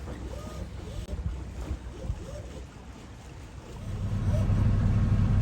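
Wind and water noise aboard a sailing catamaran, with a few faint chirping squeaks. About four seconds in, a loud, steady low engine drone sets in: the boat's inboard diesel running.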